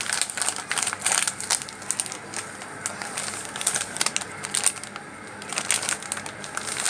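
Plastic packet of ACI Pure Salt crinkling and rustling as salt is poured out of it, a dense run of short crackles and clicks.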